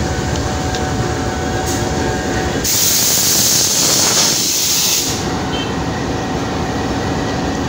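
Pakistan Railways GEU-20 (GE U20C) diesel-electric locomotive running as it moves slowly past, with a steady engine rumble. About three seconds in, a loud hiss starts suddenly and lasts about two seconds before cutting off.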